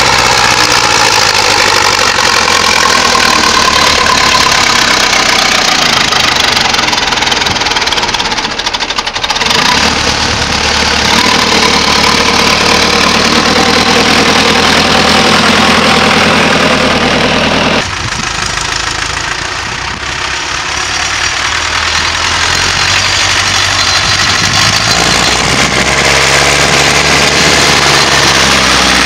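Ursus farm tractor's diesel engine running close by under load as it hauls a loaded grass-silage trailer over the silage pile. The engine note shifts about 9 seconds in, and about 18 seconds in the sound drops a little before building again.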